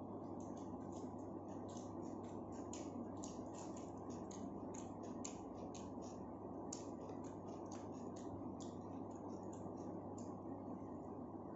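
Close-miked eating of chicken biryani: many small quick wet clicks and smacks, several a second, over a steady low hum.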